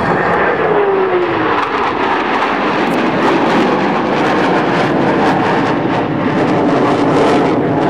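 Loud jet engine noise from F/A-18 Hornet jets flying past, with a tone that drops in pitch in the first couple of seconds as a jet passes.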